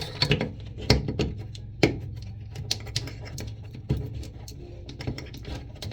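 Toilet tank parts being handled and fitted by hand: a run of small clicks and knocks, with sharper knocks about one, two and four seconds in.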